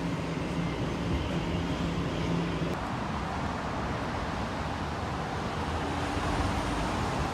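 Steady rumble and hiss of a moving vehicle, with a low hum that drops away about three seconds in.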